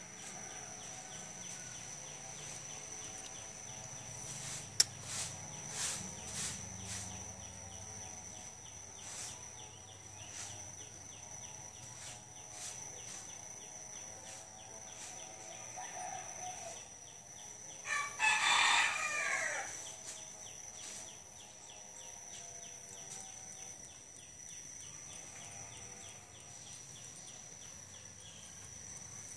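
A rooster crows once, about two-thirds of the way through, over a steady high-pitched tone in the background. A single sharp click sounds about five seconds in.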